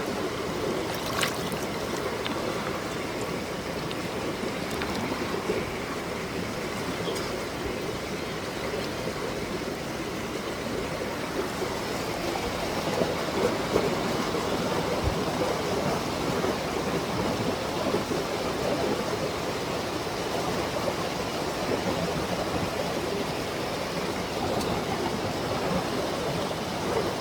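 A creek's water rushing steadily over rocks, an even, unbroken noise.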